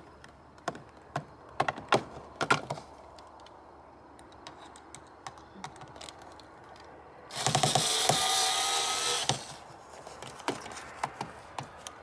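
A few plastic clicks and knocks as the solar light is handled against the fence, then about seven seconds in a cordless drill runs for about two seconds with a whining motor, driving a screw to mount the light.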